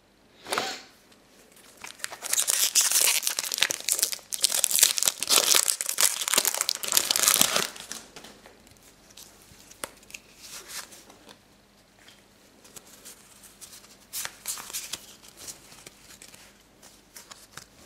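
Foil Pokémon booster pack wrapper being torn open and crinkled: a short crackle at the start, loud dense crinkling from about two to eight seconds in, then a few softer rustles of the wrapper being handled.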